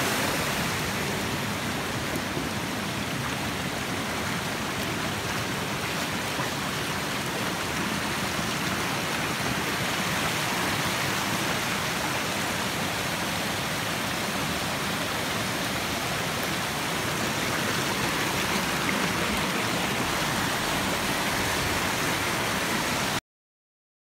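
Waterfall rushing steadily, an even noise of falling water, until it cuts off abruptly near the end.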